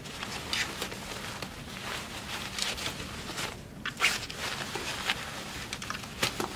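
Fabric seat pad rustling as it is handled and pulled around a baby swing's seat frame, with several brief sharp rustles and light knocks of the frame.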